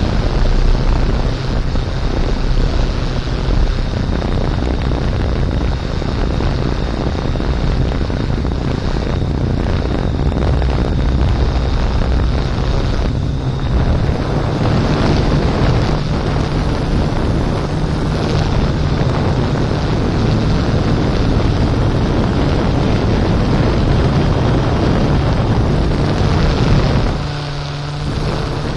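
Steady whirring hum of a camera-carrying quadcopter's motors and propellers, with wind rushing over its microphone. Near the end the hum briefly dips and shifts in pitch.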